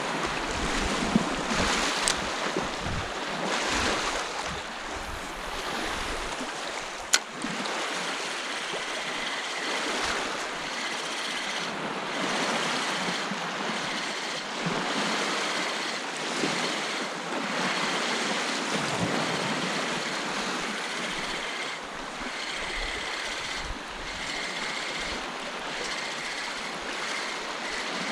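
Small waves lapping in shallow sea water, with wind on the microphone. There is a single sharp click about seven seconds in.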